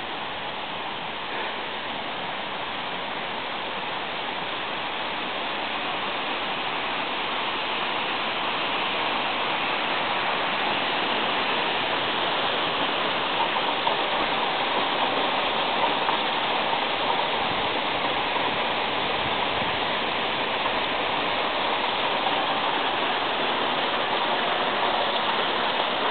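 Running water rushing steadily, as from a stream or mill channel, growing louder over the first several seconds and then holding steady.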